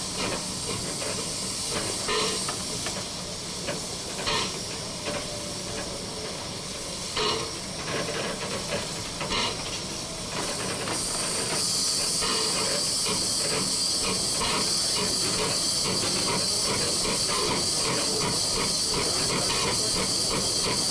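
Steam hissing from the 1925 La Meuse steam locomotive 'Magda', with a few sharp knocks in the first half. About halfway through, the hiss becomes louder and steady.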